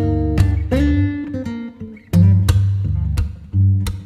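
Background music: acoustic guitar playing a series of plucked and strummed chords, each ringing and fading before the next.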